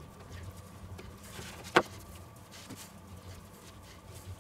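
Hands pressing and stretching sticky pizza dough out by the fingertips on a floured wooden board: faint soft patting and rubbing, with one sharp click a little under two seconds in.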